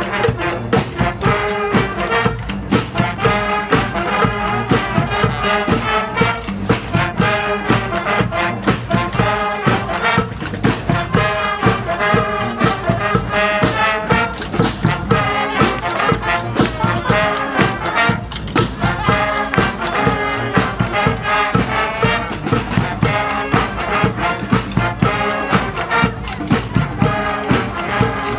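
Brass street band playing an up-tempo New Orleans-style tune, with trumpets and trombones over a steady drum beat.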